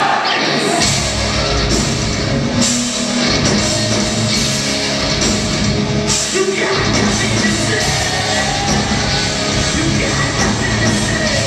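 Live rock band playing loud: distorted electric guitars, bass and drums, with sung vocals. The low end drops out briefly about six and a half seconds in before the full band comes back.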